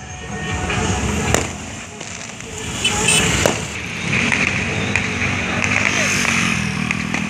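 Jeeps and scooters driving past with a low, steady engine rumble, broken by two sharp firecracker bangs, one about a second and a half in and another two seconds later, with voices in the background.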